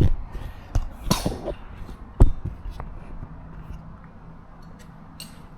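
Handling noise: a few sharp knocks and clicks, the loudest about two seconds in, then only faint scattered ticks, as the camera is picked up and set down.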